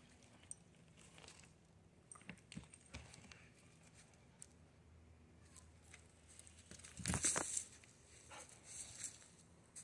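Faint scattered taps and rustles of dogs' paws moving on dry leaves and a carpeted wooden box, with a louder burst of rustling about seven seconds in and a smaller one near the end.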